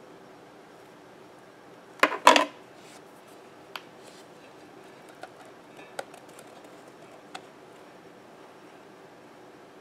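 Small hard objects handled on a workbench: a short double clatter about two seconds in, then a few light single ticks and clicks, over a steady faint hiss.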